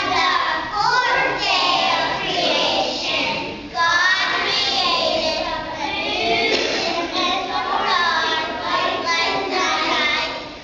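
A group of kindergarten children singing a song together, with a short break about four seconds in.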